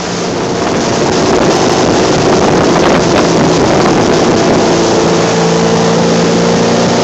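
Ski boat's engine running at speed while towing a water skier, a steady hum under the constant rush of water and wind. The hum grows more distinct about halfway through.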